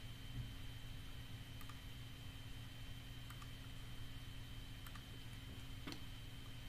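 A few faint computer mouse clicks, spaced a second or more apart, with the clearest near the end. Under them runs a steady low electrical hum and a thin high whine.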